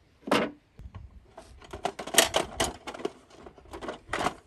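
Flat-blade screwdriver working metal against metal inside a forklift wheel hub: an irregular run of sharp clicks and scrapes, densest in the middle, with a strong scrape near the start and another near the end.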